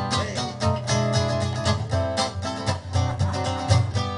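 Two acoustic guitars playing a swing tune's instrumental intro: one picks the melody over the other's steady strummed chords.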